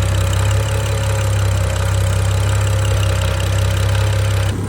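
BMW 535i's turbocharged straight-six idling steadily, freshly started after a full timing chain replacement, with the injectors' usual loud ticking. A faint steady whine sits over it, which the owner takes for the new timing chains still being tight and thinks is normal.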